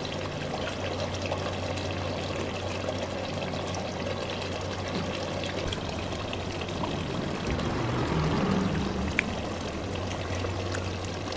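Beef vindaloo curry simmering uncovered in a clay pot, a steady bubbling of the thick gravy as it reduces, with a steady low hum underneath.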